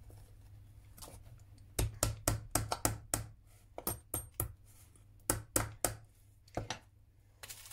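Pin hammer tapping a pin tack, held in pliers, into a wooden board: a quick run of sharp light taps about two seconds in, then shorter groups of taps.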